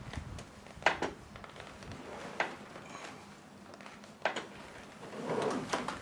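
Four sharp clacks of hard parts being handled at the back of a Jeep, a second or more apart, the first the loudest, with rustling and scuffling near the end.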